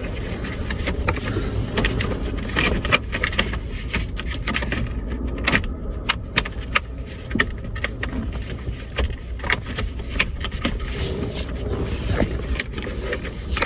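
Plastic steering-column trim covers being handled and fitted together: a string of sharp clicks and knocks over a steady low rumble.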